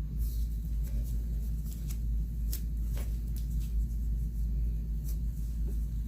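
Pins being pulled out of fabric and set down, heard as a few soft ticks and rustles over a steady low background hum; the sewing machine is not running.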